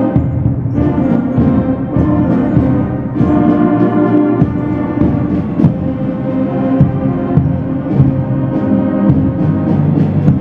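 A school concert band playing a piece together: woodwinds and brass, with a tuba on the low notes, and short percussion strokes through the music.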